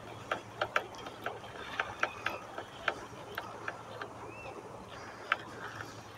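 Spinning reel clicking at uneven intervals as a hooked carp is played in on the line.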